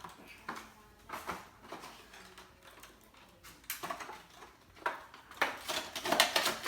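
Scattered knocks, clicks and rustles of small objects being handled and set down on a table, busiest and loudest in the last second and a half.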